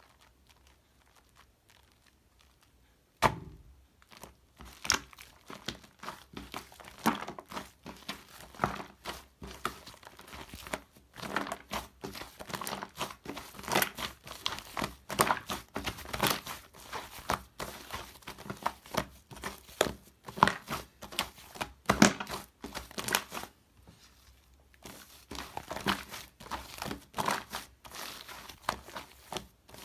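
Shaving foam being squished and pressed by hand, giving dense, irregular crackling and clicking. It starts with a sharp click about three seconds in and eases briefly near the end.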